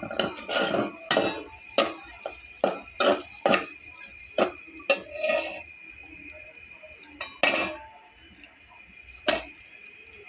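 A metal utensil clinking and scraping against cookware in a run of irregular knocks, most of them in the first half, with a couple more near the end.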